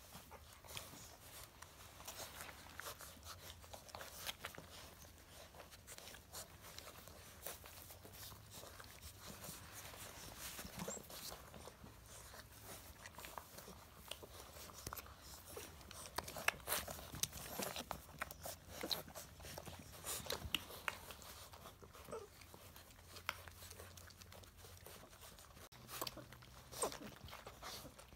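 Six-week-old livestock guardian dog puppies moving about and playing: faint scattered scuffling and clicking, with a few brief puppy vocalisations now and then.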